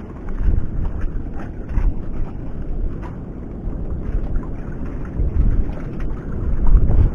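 Wind buffeting the camera microphone as a loud, uneven low rumble over the sea, with faint scattered clicks from handling the fishing rod and line.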